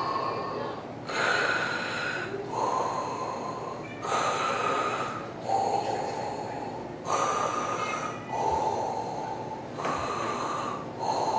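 Slow, rhythmic heavy breathing, in and out in turns, each breath lasting about a second and a half.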